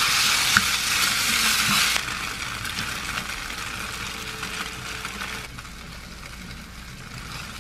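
Bacon and onions frying in a pan of cream sauce, sizzling as a spatula stirs them, with a single knock of the spatula on the pan early in. The sizzle drops abruptly about two seconds in and quietens again later.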